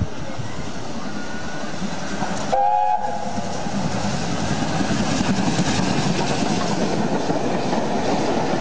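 Steam locomotive approaching at speed and giving a short whistle blast about two and a half seconds in, then running past close by with its coaches, the rushing train noise growing louder from about four seconds in.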